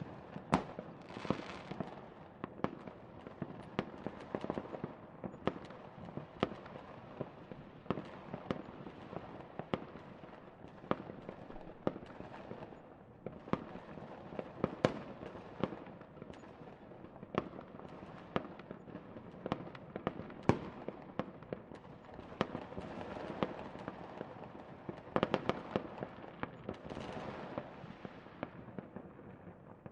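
Fireworks going off: a dense, irregular run of bangs and pops over continuous crackling, with a few louder reports standing out.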